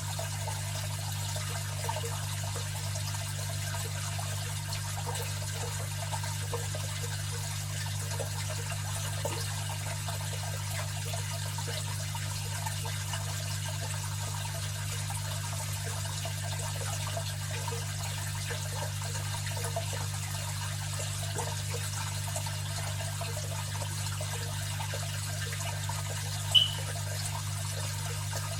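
Aquarium filter running: a steady low hum from the pump under continuous trickling, splashing water. A single short, sharp high-pitched blip near the end.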